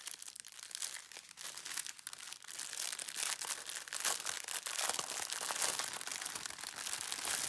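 Clear plastic packaging crinkling and rustling as hands handle and unroll a strip of small bags of diamond-painting drills in its plastic sleeve, with many small irregular crackles.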